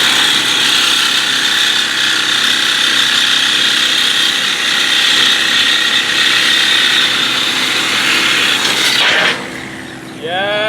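A power tool runs steadily with a high whine over a hiss, then stops about nine seconds in.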